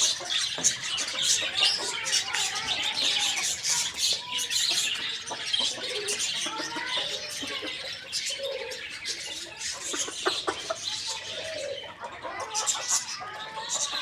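Busy chirping of many small birds, with occasional low clucking calls from chickens feeding.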